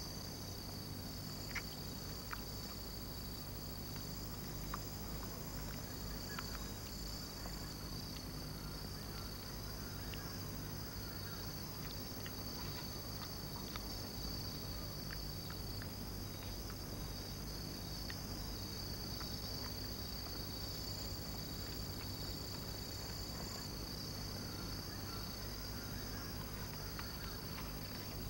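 Steady, high-pitched chorus of forest insects, with a few faint ticks and a low hum underneath.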